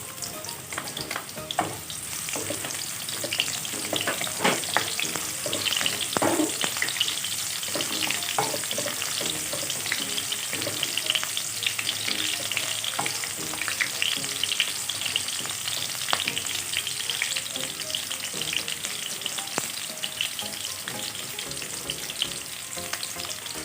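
Garlic and onion sautéing in hot oil in a pan, with a steady sizzle and the scrapes and clinks of a utensil stirring them.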